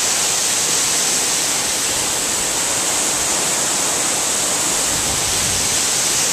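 Waterfall rushing: a steady, loud wash of noise.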